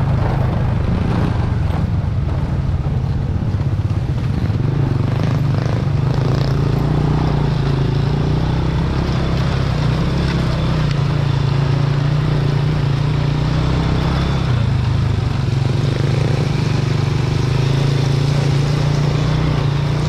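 Small Honda motorcycle engine running steadily under way on a dirt track, its note shifting slightly with the throttle, over a constant rushing noise.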